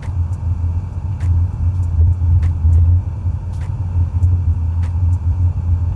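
KC-135 Stratotanker in flight, heard from inside: a steady low drone of engines and airflow, with faint ticks about once a second.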